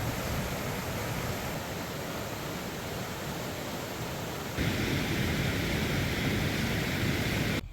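Steady rushing of fast-flowing water, a mountain creek, which changes abruptly about four and a half seconds in to a louder, fuller rush.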